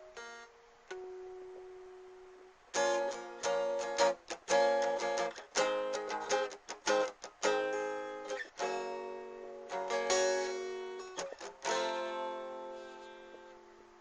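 Solo guitar playing an instrumental: a few single notes left to ring, then from about three seconds in a quick run of strummed chords, ending on a chord that rings out and fades.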